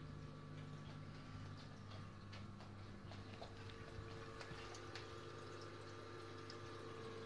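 Reef aquarium filtration: water trickling and dripping in the sump, with scattered small drip ticks, over the steady hum of the pumps.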